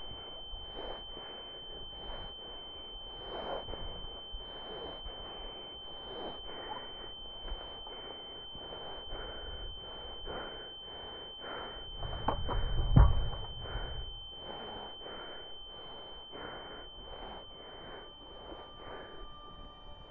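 A steady high-pitched ringing tone over regular noisy pulses, with one heavy low thud about 13 seconds in.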